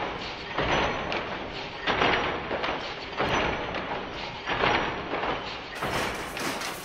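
Power loom weaving: a rhythmic mechanical clatter with a loud swishing stroke about every second and a half as the shuttle is thrown back and forth.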